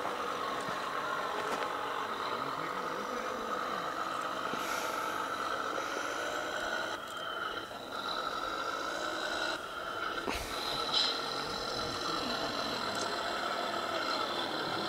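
Radio-controlled scale Volvo model truck running as it crawls forward, a steady whine with a few short clicks.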